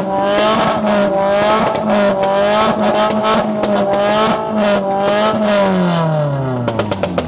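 Car engine revved and held at high revs while parked, its pitch wavering up and down in a regular pulse; about five and a half seconds in the revs fall away.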